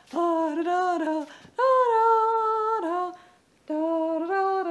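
A woman humming a slow tune in long held notes, in three phrases with short breaks between them.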